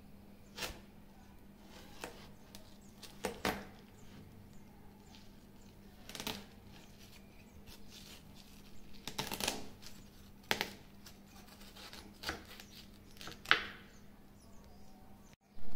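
A kitchen knife cutting through a watermelon on a wooden cutting board: short, crisp cracks and crunches as the blade splits the rind, coming irregularly every second or two.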